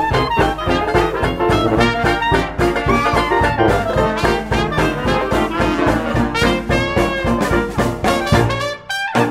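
Background music: an upbeat brass-led tune with horns over a steady fast beat.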